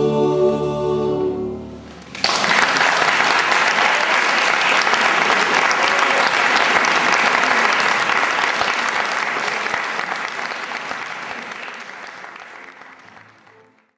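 A choir's closing held chord dies away, then audience applause breaks out suddenly about two seconds in and stays steady before gradually fading out near the end.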